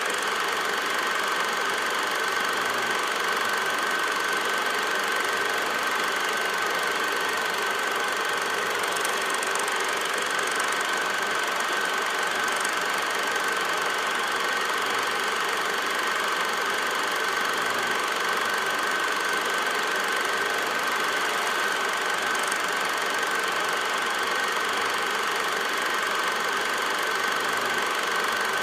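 Film projector running steadily: an even mechanical whirr with a constant high whine.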